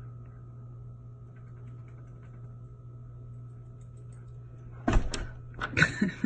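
Steady low hum, then about five seconds in a sliding glass door is pulled open with two short bursts of rattling and clunking.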